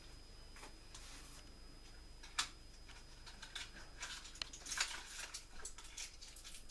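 Scattered faint clicks and rustles, with a sharper click about two and a half seconds in and a cluster of clicks near five seconds.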